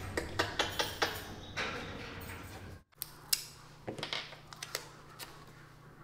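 A run of sharp metallic clicks and knocks at a tiger's cage, around the bars and the keeper's metal injection pole. After a brief break come lighter clicks and handling sounds from a desk, where a vaccine label is being stuck into a record card, over a low steady hum.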